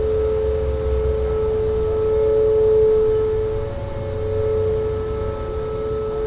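Outdoor tornado warning siren sounding a steady tone during its monthly test: two held pitches together, the level swelling and dipping slowly, over a low rumble.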